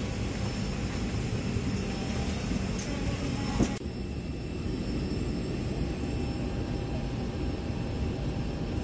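Steady hum of an airliner cabin on the ground before takeoff, from air conditioning and aircraft systems, with one short click about three and a half seconds in.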